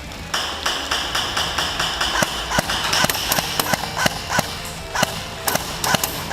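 Airsoft gun firing a rapid string of shots, about three to four sharp cracks a second at first, then more irregular with a few louder cracks.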